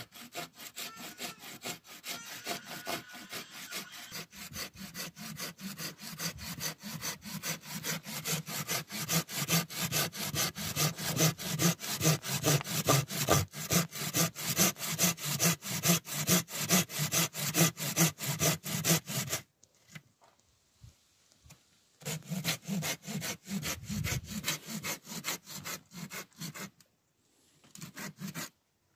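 Hand saw cutting wood with fast, even back-and-forth strokes, about four a second. The sawing stops about two-thirds through, starts again a couple of seconds later, and stops once more near the end after a short last burst.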